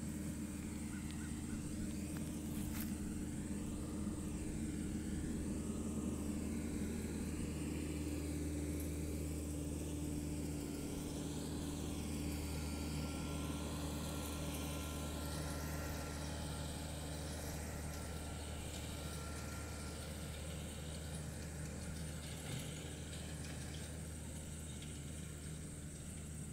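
RK55 tractor engine running steadily under working load as it pulls a tedder/rake combo through cut hay.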